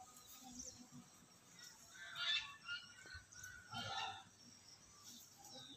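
Birds calling faintly outdoors: two short calls, about two seconds in and again about four seconds in.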